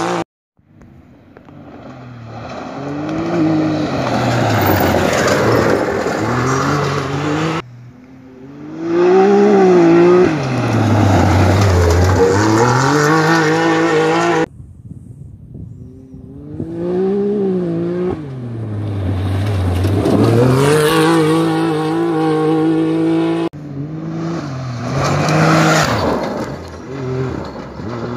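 Rally UTV (side-by-side) engines racing past, one pass after another: the engine pitch climbs, drops sharply at each gear change and climbs again, then falls away as each machine goes by. Each pass ends abruptly.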